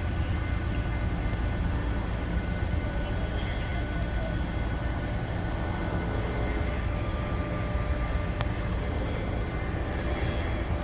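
Steady low engine rumble, with a single sharp click about eight seconds in.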